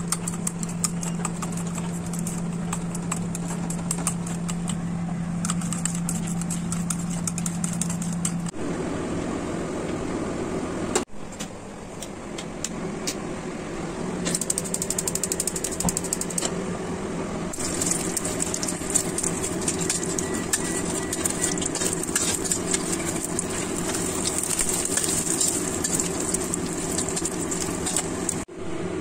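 Chopsticks beating eggs in a ceramic bowl, a rapid clicking against the bowl over a steady low hum. About eight seconds in the sound cuts to a wok on the stove. For the last part, oil sizzles and crackles as the egg omelette fries.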